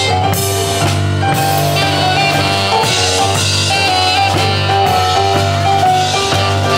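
Band music: a drum kit keeping the beat under held melody notes.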